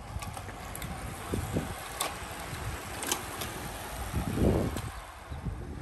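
Wind buffeting the microphone as a small group of road racing bicycles rides past, with a few sharp clicks from the bikes; a stronger gust about four and a half seconds in.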